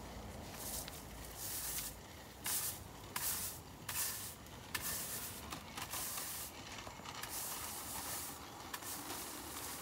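Swishing brush strokes, irregular in length and spacing, made as sound effects for the model locomotive pushing through foliage; a few light clicks fall among them.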